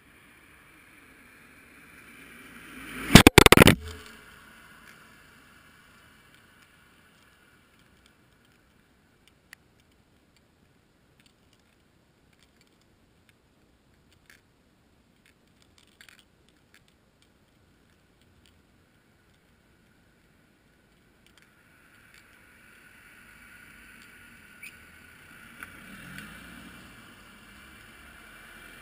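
A car passing close by: its noise builds over about two seconds, peaks very loud for about half a second around three seconds in, then dies away. After it comes near silence with a few faint clicks, and a faint rushing noise rises again near the end.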